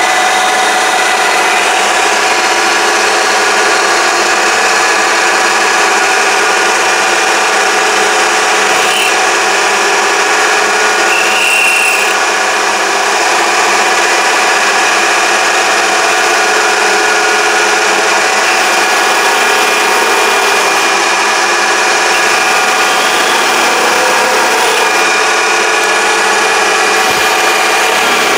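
Mini lathe running under its automatic power feed, the cutting tool turning down the workpiece: a steady whine of several tones from the machine over a continuous scraping hiss of the cut.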